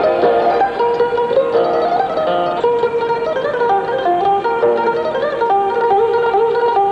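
Background music over the closing credits: a lively instrumental tune played on plucked string instruments, with quick, short notes in a running melody.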